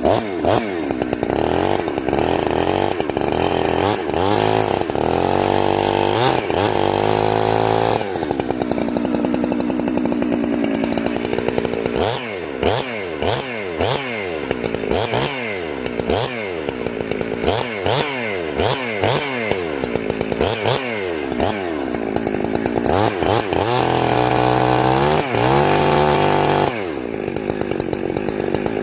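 Ported two-stroke chainsaw warming up with its carburetor's high-speed jet set very rich, revved up and dropped back to idle again and again. It runs in stretches of quick throttle blips about once a second, with a few longer held revs between.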